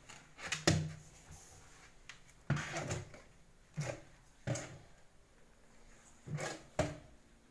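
Large hollow plastic toy building blocks knocking and clacking together as they are pushed onto a stacked tower: about seven separate knocks, some in quick pairs, with a dull hollow thud under each.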